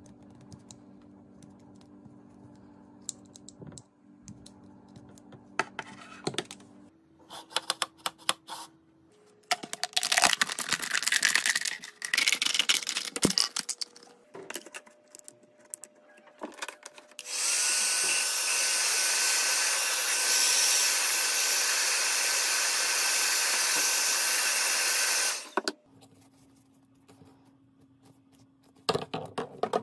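Crinkling and clicking of thin plastic being handled. Then a handheld power tool runs steadily for about eight seconds with a thin steady whine and cuts off suddenly.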